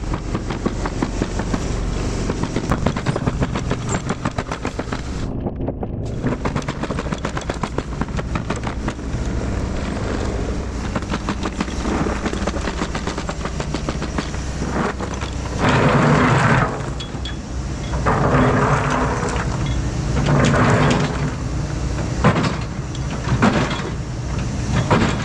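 Takeuchi TB2150 excavator's diesel engine running as the machine works its boom and bucket and tracks across the rock pad. The engine surges louder several times in the second half, under hydraulic load.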